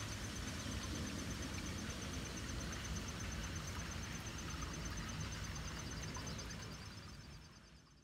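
Outdoor ambience: a steady hiss over a low rumble, with a fast, even, high-pitched pulsing running through it, fading out over the last two seconds.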